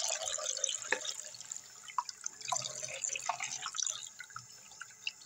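Tap water running into a sink, thinning out over the first second or two, then scattered drips and small splashes.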